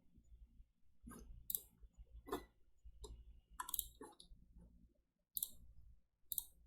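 Faint, irregular clicking of computer keys, about eight separate clicks spaced roughly half a second to a second apart, over a low steady room hum.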